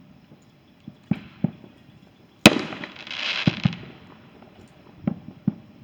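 Fireworks going off: a few booms, then a sharp, loud bang about two and a half seconds in, followed by about a second and a half of hiss, then more booms near the end.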